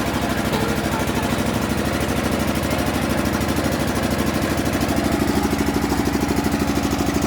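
A road-construction machine's engine runs steadily at a low, even throb, growing slightly louder about five seconds in.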